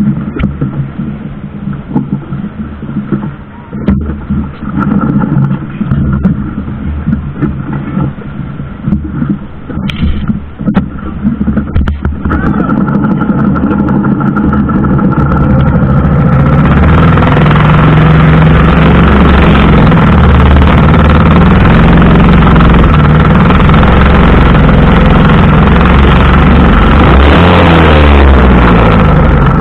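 A boat engine running close by, growing louder from about twelve seconds in into a loud, steady drone, with a short shift in pitch near the end.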